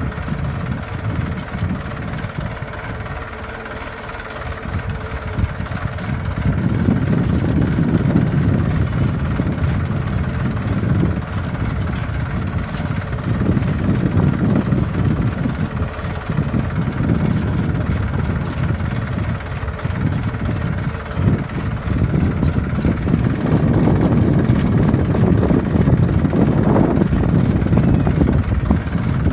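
Tractor engine running steadily under load while pulling a tine cultivator through the soil; it grows louder about six seconds in.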